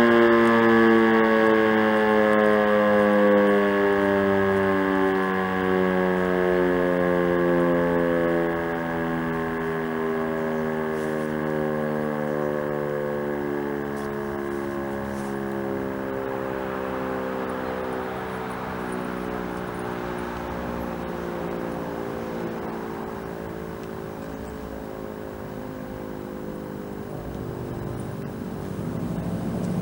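Motor-driven civil-defence siren winding down after switch-off: its wail slides slowly lower in pitch and fades away over half a minute. A low rumble of other noise rises near the end.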